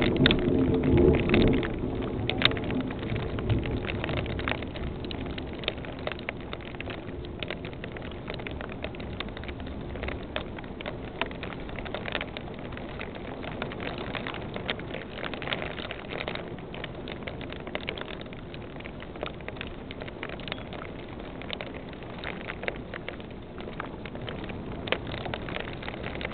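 Heavy rain falling steadily, with many sharp ticks of drops striking close by. A louder low rumble fades over the first two seconds.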